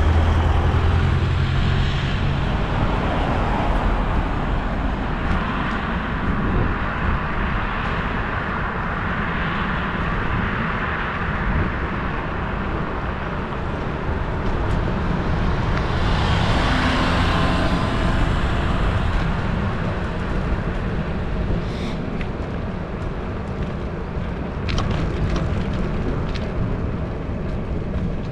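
Road traffic passing on a busy road, a steady rush of tyre and road noise. Louder vehicle passes come near the start, with a low engine hum, and again about two-thirds of the way through.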